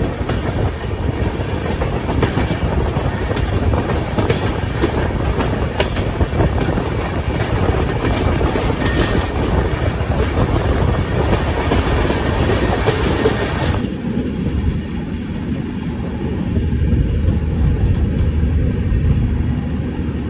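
Express passenger train running at speed: a steady rumble and rattle with the wheels clicking over rail joints. About two-thirds of the way through, the sound abruptly turns duller and lower as the higher rattle drops away.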